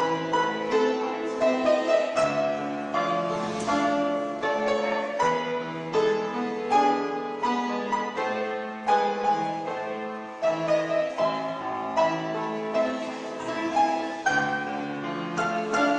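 Instrumental music: a lively tune of short, crisp notes over lower bass notes, accompanying a ballet exercise.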